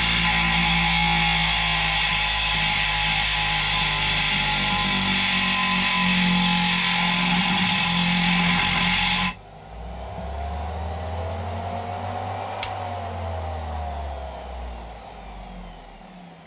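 Loud background music, cut off abruptly about nine seconds in. Then a Dremel rotary tool with a thin diamond cutting disc runs against the plastic cab, its whine rising and then falling in pitch.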